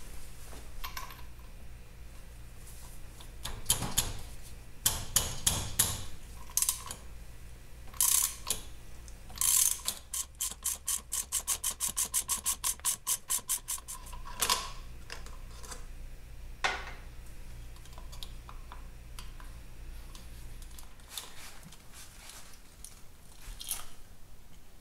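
A socket ratchet clicking rapidly and evenly for about four seconds midway as the clutch centre nut is run off, after several metallic clinks and knocks of tools against the clutch.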